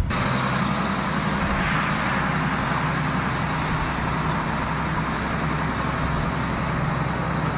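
Large four-wheel-drive farm tractor's diesel engine running steadily.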